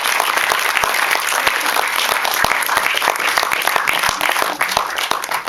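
Audience applauding, a dense crowd of hand claps that starts to fall away at the very end.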